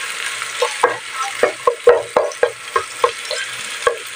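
Chopped onion and garlic sizzling in hot oil in a nonstick pan as a spatula stirs them, with repeated scrapes and taps of the spatula against the pan, about three a second.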